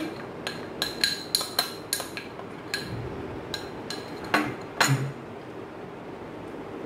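A spoon clinking and tapping against glass bowls as cocoa powder is spooned into crushed biscuits and stirred: a dozen or so sharp, ringing clinks over the first five seconds, the loudest two near the end of that run, then only faint sounds.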